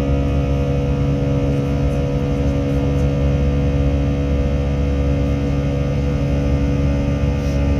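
Jet airliner's engines heard from inside the passenger cabin during the climb after takeoff: a steady, loud drone with several steady humming tones over a deep rumble.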